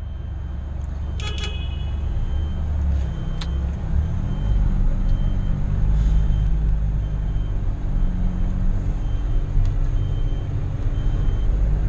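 John Deere tractor engine running steadily while still warming up after a cold start, getting louder over the first few seconds. A faint high beep repeats at a regular pace over it.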